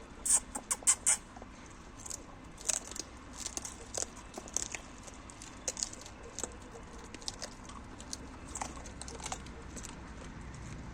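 Dogs eating, crunching food: a quick run of loud sharp crunches about half a second in, then scattered smaller crunches and clicks.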